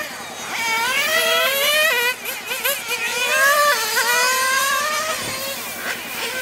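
Small nitro glow engine of an RC touring car (O.S. 12TG) running at high revs, its pitch climbing on the throttle and dropping off several times in a row.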